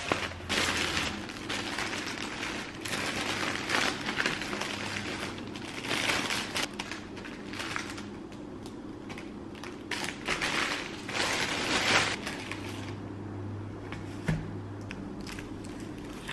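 Plastic bag and cellophane wrapper crinkling in irregular bursts as a bakery bun in a paper cup is taken out and unwrapped.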